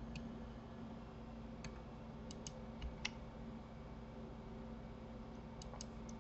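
Faint, scattered clicks of a computer mouse and keyboard, some in quick pairs, over a steady low hum.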